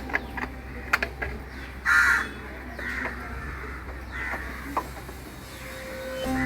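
Crows cawing: three harsh caws, the first and loudest about two seconds in, the others about a second apart, with a few sharp clicks earlier on.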